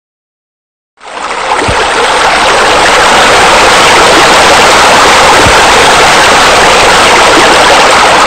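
Loud, steady rush of splashing water from a spillway pouring into a spa, starting suddenly about a second in.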